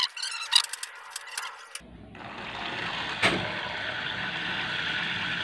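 Faint clicks and squeaks of a plastic syringe being worked while fluid is drawn out of the battery cells. About two seconds in, a steady rushing noise starts suddenly and becomes the loudest sound, with a single knock a little after three seconds.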